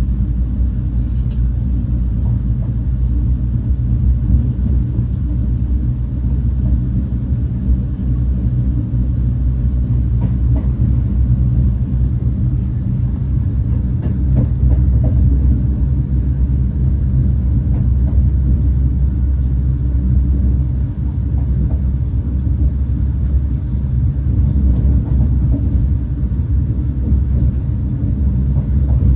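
Renfe class 130 (Talgo 250) high-speed train running on the rails: a steady low rumble with faint scattered clicks.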